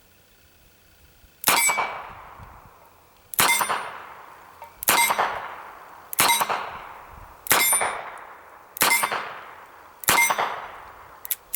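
Seven shots from a stainless Ruger GP100 revolver chambered in .327 Federal Magnum, firing mild .32 Smith & Wesson Long rounds, one every second and a half or so, emptying its seven-round cylinder. Each sharp report is followed by a long metallic ring.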